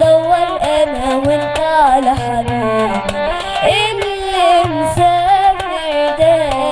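Arabic music played live: a melody line with vibrato over hand-drum beats, with no sung words.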